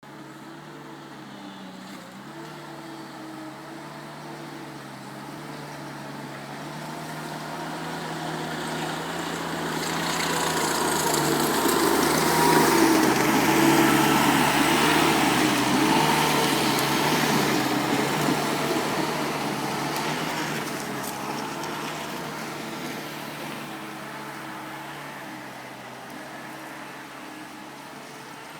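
ASV RC-60 rubber-tracked skid steer's diesel engine running under load as the machine approaches, is loudest a little before halfway, then moves off and fades.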